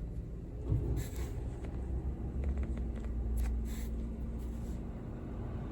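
Car engine idling, heard from inside the cabin as a low rumble, with a few faint clicks and rustles of controls being handled. A steady hum joins about two and a half seconds in.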